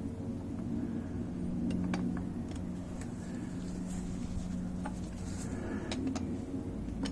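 A few faint clicks and light taps from metal parts being handled during motorcycle fork assembly, over a steady low hum.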